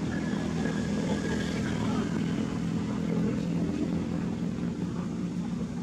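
A motor engine running steadily: an even, low drone with no change in pitch.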